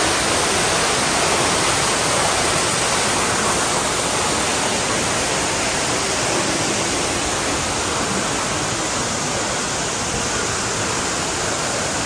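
Waterfall pouring into a narrow rock gorge: a steady, even rushing of falling water.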